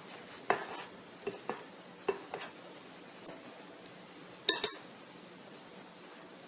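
A spoon knocking and clinking against a mixing bowl while stirring thick apple cake batter: a handful of sharp, irregular knocks, the loudest a double knock about four and a half seconds in.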